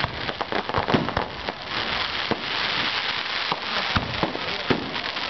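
Aerial firework shells bursting in quick succession: many sharp bangs, with the biggest about a second in and again near the four-second mark, over a continuous crackling hiss from the falling glittering stars.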